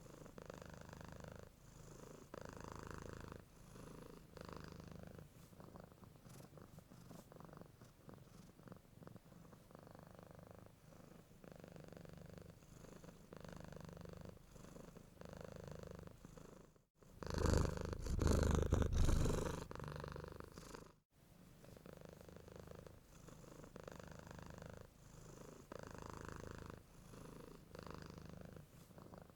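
Domestic cat purring close up, a low rumble that swells and fades with each breath in a steady rhythm. Partway through it cuts out for a moment, comes back much louder for about four seconds, then cuts out again and returns at its usual level.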